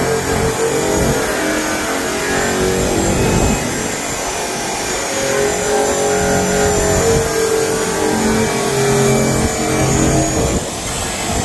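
KATSU 1250 W variable-speed electric drum sander running, its motor whine steady but shifting up and down in pitch as it works.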